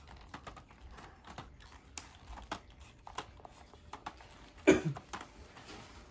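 Scissors clicking and snipping at a plastic blister pack, with scattered light clicks and crackles of the plastic. One louder crackle stands out about three-quarters of the way through.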